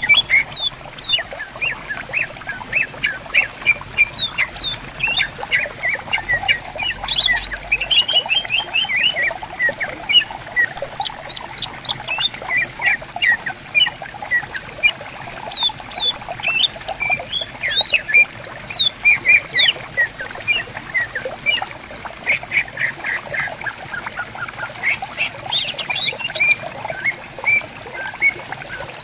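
Cucak ijo (greater green leafbirds) calling and answering one another in a busy run of short, quick whistled and chattering notes, some of them harsh.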